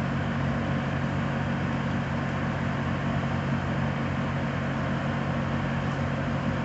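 An engine running steadily at an even pitch, a low humming drone with no revving.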